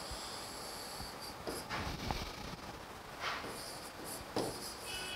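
Chalk scratching on a blackboard in a handful of separate strokes with pauses between, as lines are drawn and letters written.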